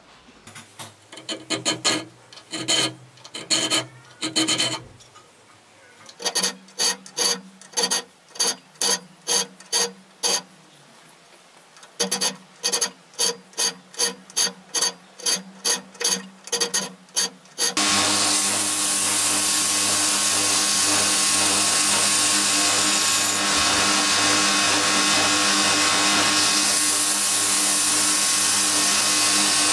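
Hand-file strokes on the steel of a small knife clamped in a vise, irregular at first, then an even run of about two strokes a second. About eighteen seconds in, a belt grinder takes over, running steadily as the blade edge is held to the belt for sharpening.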